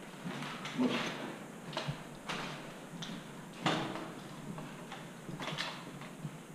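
Irregular footsteps and knocks of gear as a player moves through a concrete stairwell, with a handful of separate thuds and clatters, the loudest about midway.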